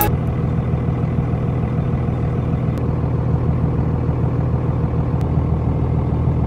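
A 2nd-gen Dodge Ram's 24-valve Cummins inline-six turbo diesel idling steadily, heard from inside the cab.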